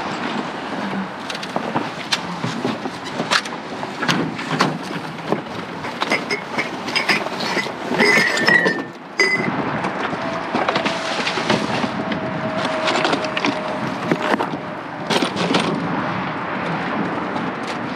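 Trash being rummaged through in a dumpster: repeated knocks, clatters and rustling as items are moved around.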